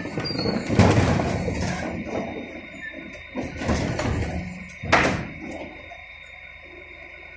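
Terberg OmniDEL hydraulic bin lifter on a refuse truck raising and tipping a wheelie bin into the hopper. There is a loud bang about a second in and a second sharp bang about five seconds in.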